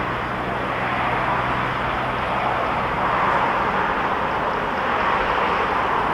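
Steady road traffic noise from cars and vans passing on a highway, an even hum of tyres and engines that swells a little about halfway through.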